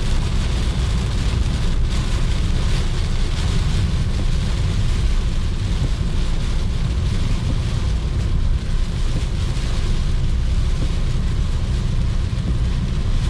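Heavy rain falling on a moving Maruti Suzuki Ciaz, with a steady low road and engine rumble underneath.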